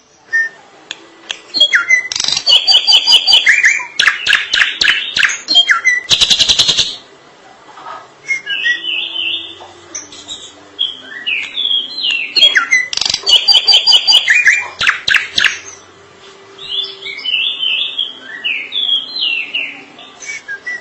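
Drongo (srigunting) singing a long, varied song: loud strings of rapid harsh, chattering notes twice, with quieter runs of short whistled notes in between.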